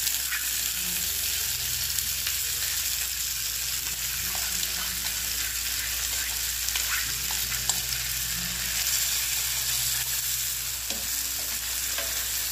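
Oil sizzling in a frying pan as dry precooked rice is stirred into a sofrito of garlic, onion and tomato, with scattered light scrapes and taps of the spatula against the pan. The rice is being toasted in the oil before the water goes in.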